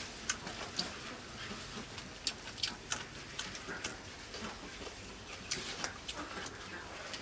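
Close-up mouth sounds of a person eating: chewing and lip smacks heard as a string of irregular sharp clicks over a steady background hiss.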